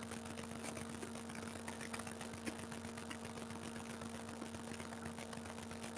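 Low room noise: a steady faint hum over hiss, with a few faint ticks, one a little clearer about two and a half seconds in.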